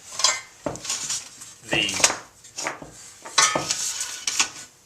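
Irregular metallic clinks and rattles of a lawn mower's recoil starter parts and hand tools being handled, with several sharp knocks.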